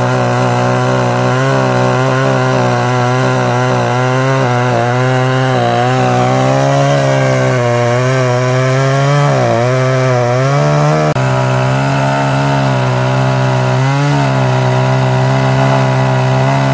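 Two-stroke chainsaw running at high throttle while cutting into a log, its engine pitch sagging and recovering as the chain bites into the wood. A brief break comes about eleven seconds in, and then the saw runs on.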